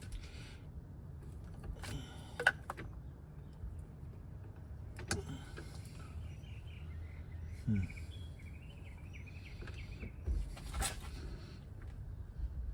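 Scattered clinks and knocks of hand tools being handled, a few seconds apart. Birds chirp faintly in the background.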